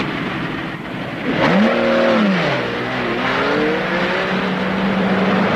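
Lamborghini Miura's V12 engine revving sharply up and back down, then pulling away with a slowly rising engine note that settles into a steady drone.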